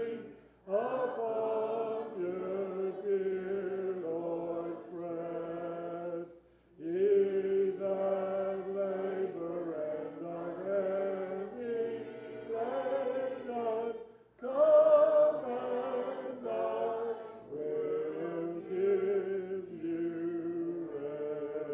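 Church congregation singing a hymn a cappella, mixed voices without instruments, in sustained phrases with short breaks between lines.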